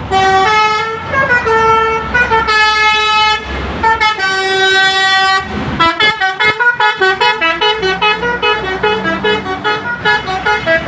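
Bus telolet horn playing a tune: long held notes stepping from pitch to pitch, then, after a brief break about halfway through, a quick run of short notes, several a second.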